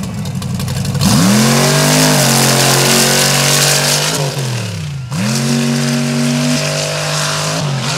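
Mega truck engine revving hard under full throttle twice. Its pitch climbs steeply about a second in and holds, falls away around four seconds, then climbs and holds again before dropping near the end.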